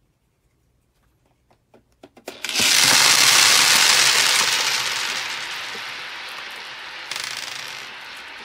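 Small hard red balls spilling from a toy garage's drop-down door onto a hard tabletop: a few scattered clicks, then a sudden loud rattling clatter of many balls bouncing and rolling that slowly dies away, with a brief fresh clatter near the end.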